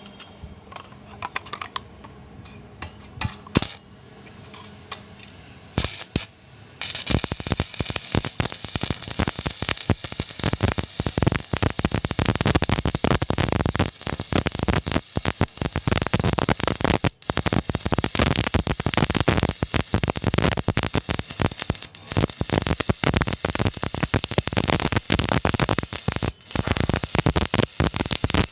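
Stick (arc) welding on galvanized pipe: a few light metal clinks, then about seven seconds in the arc strikes and crackles steadily as the electrode burns.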